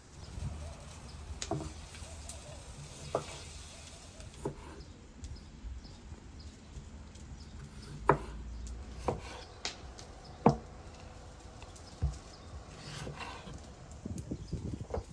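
A kitchen knife slicing tomatoes on a wooden cutting board: sharp, irregular knocks of the blade on the wood, one every second or so, the loudest about eight and ten and a half seconds in.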